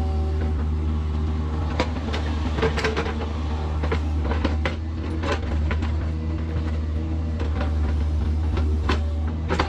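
Kubota mini excavator's diesel engine running steadily under work, with repeated sharp clanks and knocks scattered throughout.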